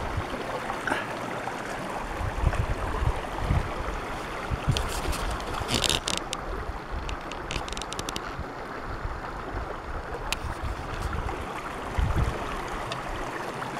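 Steady rush of flowing water with wind buffeting the microphone in low gusts, and a quick run of light clicks around the middle.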